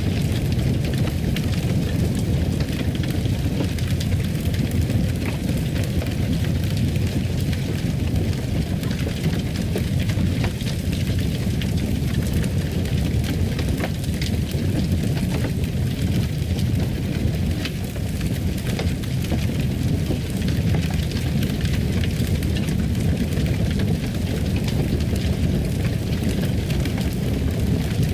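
Fire crackling in a fireplace: a steady low rumble of burning with frequent small pops and crackles throughout.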